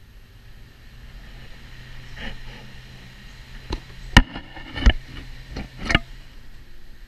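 Small Blizzard electric fan running with a steady low motor hum. Five sharp clicks come between about three and a half and six seconds in, and the hum stops shortly before the end.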